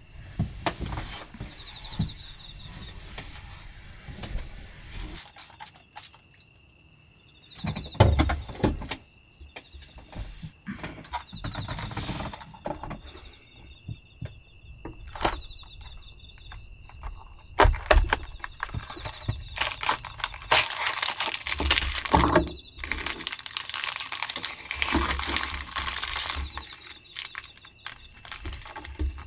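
Foil-lined plastic inner bag of a snack box crinkling and tearing open: loud, dense crackling over several seconds in the second half, after quieter handling of the cardboard box. Crickets chirp faintly and steadily throughout.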